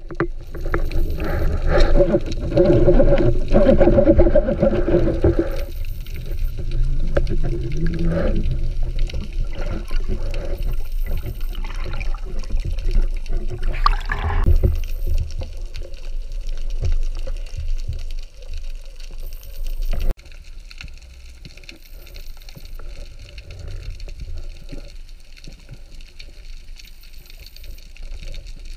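Water sloshing and rushing around a diver's underwater camera housing, muffled and uneven, with a splashy burst about halfway through as the diver breaks the surface. About two-thirds of the way through it drops suddenly to a quieter, steadier underwater wash.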